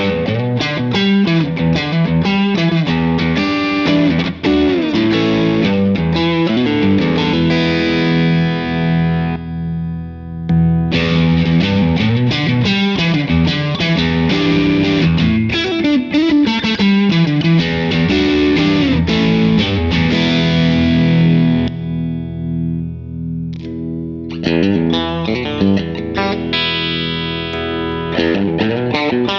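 Electric guitar played through overdrive pedals into a clean amplifier: distorted chords and riffs, with two short breaks, about a third and three quarters of the way through.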